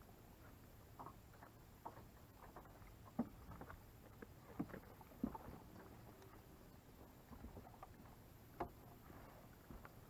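Quiet, with a few scattered sharp knocks and taps as a hooked largemouth bass is swung into a small fishing boat and handled, the loudest near the middle and a single crisp click late on.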